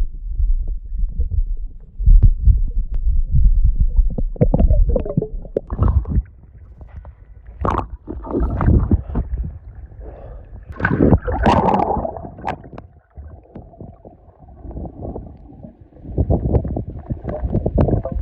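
River water gurgling and splashing right at the microphone, with heavy, uneven low rumbling and a few sharper splashes about halfway through.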